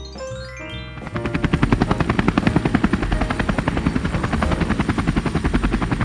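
Helicopter rotor sound effect: a fast, even chopping beat of blade thumps that starts about a second in, after a short rising musical sweep.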